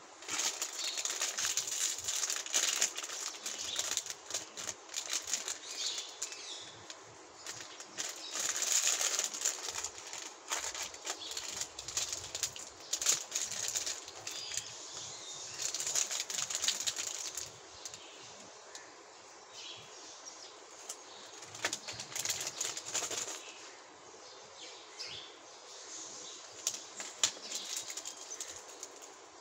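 Plastic and foil sweet wrappers crinkling and rustling as hands pick up, move and hold the packets, in irregular bursts with short quieter pauses.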